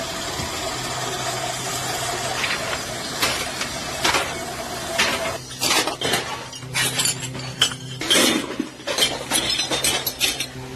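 A steady rushing noise with a hum, then from about five seconds in a string of sharp clinks and clatters of scrap metal parts being tossed and handled.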